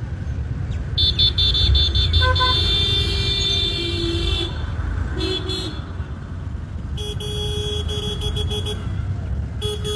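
Vehicle horns honking in long held blasts, the first about a second in, a short one around five seconds, then again from about seven seconds and near the end, over a steady low rumble.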